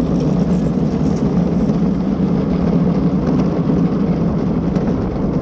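Steady rumble of a Skyline luge cart's wheels rolling down the track.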